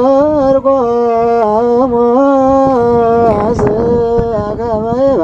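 A single voice chanting a liturgical melody in long, held notes with small ornamental turns, in the manner of Ethiopian Orthodox church chant, with a brief pause for breath about halfway through.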